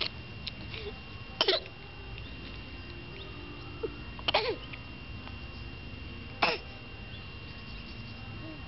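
A baby hiccuping three times, a couple of seconds apart, each hiccup short and sudden.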